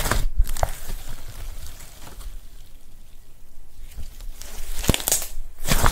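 Hands squeezing and stretching soft slime, giving wet crackles and small air-bubble pops. These are clustered at the start and again near the end, and quieter in between.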